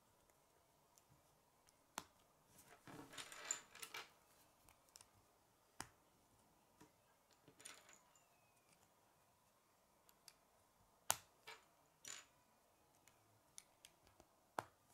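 K'nex plastic rods being pushed and snapped into a white connector hub: scattered sharp plastic clicks and short handling rattles, the sharpest snap about three-quarters of the way through.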